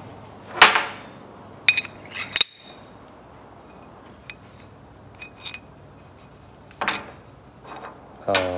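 Metal clinking and knocking as the pedal shaft of a 1965 VW Beetle pedal cluster is picked up off a workbench and slid into the cluster housing. About five short knocks, the sharpest about half a second in.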